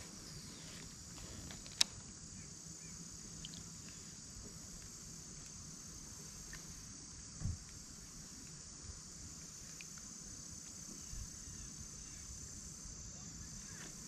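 Steady high-pitched insect chorus, with a single sharp click about two seconds in and a soft low thump about halfway through.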